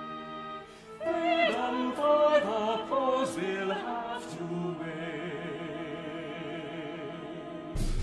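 Operatic singing with orchestra: held orchestral chords, then about a second in a voice enters singing with a wide vibrato over sustained accompaniment. Just before the end a loud, low percussive entry comes in.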